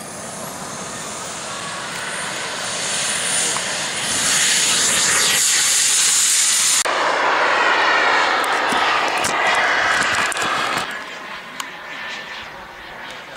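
Radio-controlled jet model's engine building to full power on its takeoff run, loud with a high-pitched hiss as it passes, then fading about eleven seconds in as the model climbs away.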